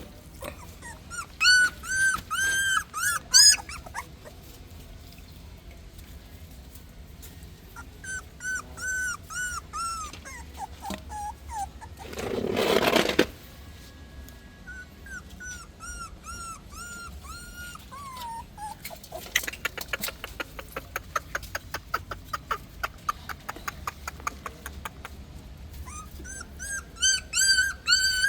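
Newborn puppies whimpering in short runs of high, arched squeaks, with a brief loud rustle about halfway through and a stretch of rapid soft clicking in the last third.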